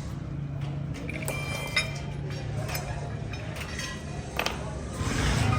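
Metal parts or tools clinking and ringing briefly several times, over a steady low engine hum.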